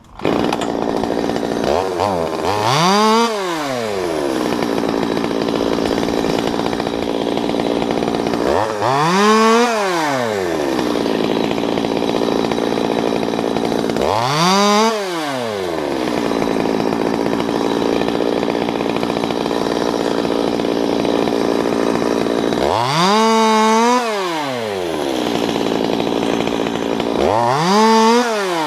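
Stihl two-stroke top-handle chainsaw idling, revved up to full throttle and back down five times as it cuts through small walnut limbs.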